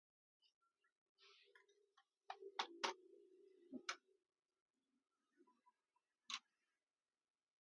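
Sharp plastic clicks and snaps from the opened laptop's case and parts being handled: four quick clicks close together about two to four seconds in, and one more single click near the end.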